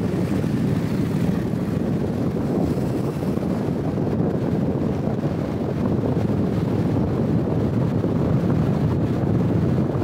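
Steady low wind rumble across the microphone of a THETA V 360-degree camera held outside a moving car, mixed with the car's driving noise.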